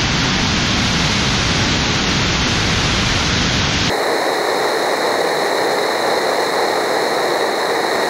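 Rocket engine of a Dawn Aerospace Mk-II Aurora spaceplane firing in a static hot-fire test: a loud, steady rushing noise. About four seconds in the tone shifts abruptly from a deeper, fuller rush to a thinner hiss.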